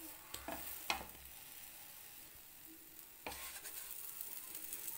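Banana pancake batter sizzling faintly in butter on a flat pan, with a wooden spatula scraping and pressing on it a couple of times in the first second. The sizzle gets a little louder about three seconds in.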